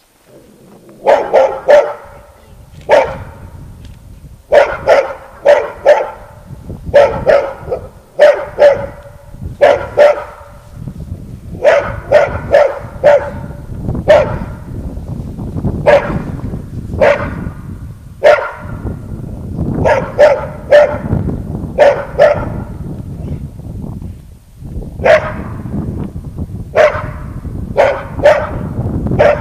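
A dog barking in short volleys of two to four loud barks, repeated every second or two.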